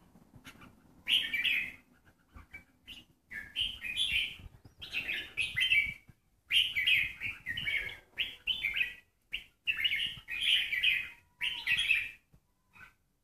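Caged songbirds singing in short, chirpy phrases, about eight bursts of quick notes with brief pauses between them.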